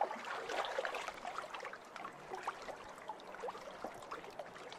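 Air bubbles from a pond aerator's submerged diffuser breaking at the water surface: faint, steady bubbling made of many small plops that rise in pitch.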